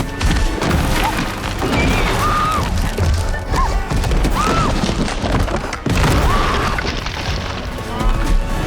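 Film action soundtrack: dramatic music under repeated deep booms and crashes, with several short high cries that rise and fall in pitch.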